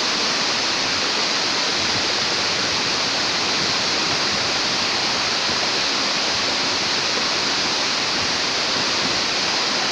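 Sanje Falls waterfall pouring: a loud, steady, unbroken rush of falling water.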